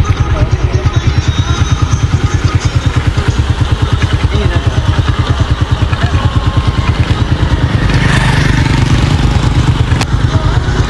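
Motorcycle engine idling with a fast, even putt-putt.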